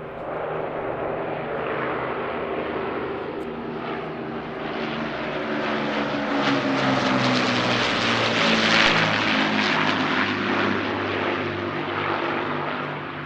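Propeller aircraft engines running in a steady multi-tone drone that builds louder toward the middle, then fades out near the end.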